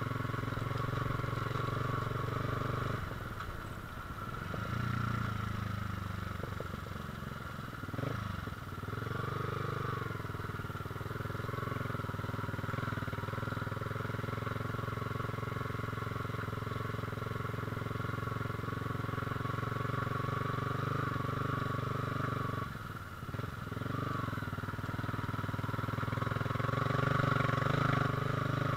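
Yamaha R15 V3's 155 cc single-cylinder engine running steadily as the motorcycle is ridden along a dirt track. The engine note dips briefly a few seconds in, again about eight seconds in, and once more a little after twenty seconds.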